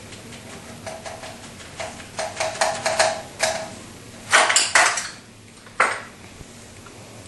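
Painting tools clinking and tapping in a metal easel tray, several light clicks with a short ring in quick succession. They are followed by a couple of louder scraping rustles and one sharp knock.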